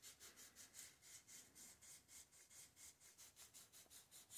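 Faint, quick rubbing of sandpaper twisted by hand against the end of a Kohler Magnum M18 exhaust valve stem, about five strokes a second. It is deburring the freshly ground stem end and its chamfer.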